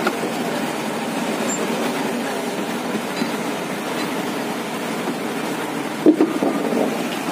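Trawler's engine running steadily, heard on deck with wind and sea noise. A brief thump comes about six seconds in.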